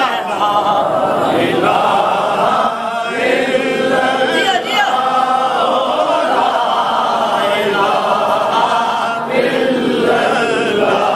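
A congregation of men chanting a line of an Urdu naat together in unison, many voices singing the refrain.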